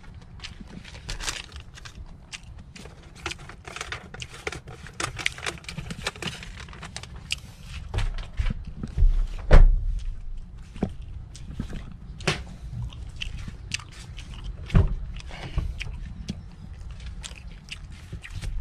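Footsteps and handling noises around a Lexus SUV as its doors are opened and shut: scattered clicks and crackles with a few sharper thumps, the loudest about halfway through.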